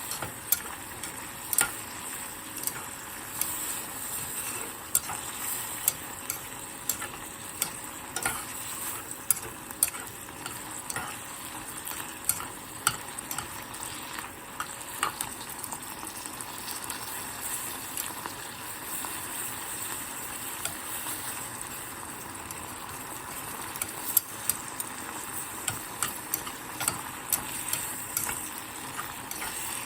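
Food frying in oil in a pot, with a steady sizzle, while it is stirred; the utensil clicks sharply and irregularly against the pot, less often for a while midway.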